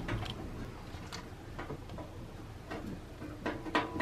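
Light, irregular metal clicks and taps as a stainless flue pipe is fastened to the top of a steel camping wood stove with a screwdriver, about six in all, the loudest near the end.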